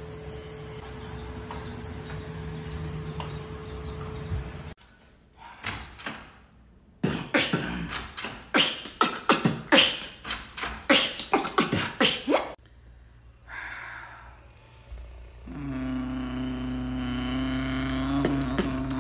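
Beatboxing: a fast run of clicks, pops and vocal percussion, followed near the end by a steady buzzing drone held by the voice. Before it, a steady low hum with a held tone cuts off suddenly.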